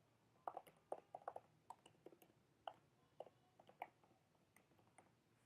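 Faint keystrokes on a computer keyboard, an irregular string of light clicks as an email address is typed in.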